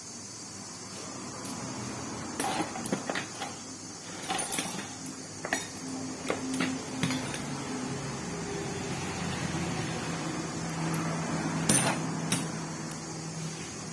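Scattered knocks and clicks of hard parts being handled during a stand fan repair, the two loudest near the end, over a low steady hum that strengthens about halfway through.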